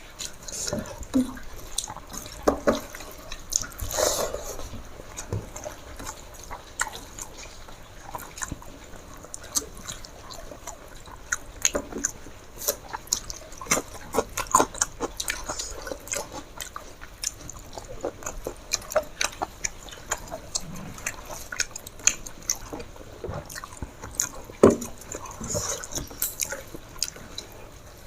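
Close eating sounds: wet chewing, smacking and short clicks of someone eating rice with chicken curry, irregular throughout, with a few louder smacks.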